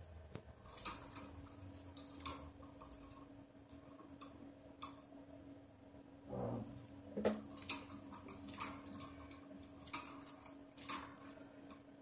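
About a dozen irregular sharp clicks and light taps from a green-cheeked conure moving about its wire cage. There is one short, lower sound about six and a half seconds in.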